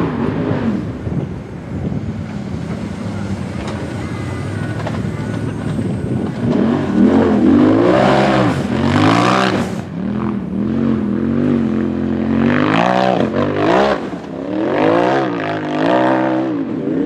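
Race UTV engine running under load on a steep dirt hill climb. From about seven seconds in it revs up and drops back again and again, roughly once a second, as the tyres spin in the loose dirt.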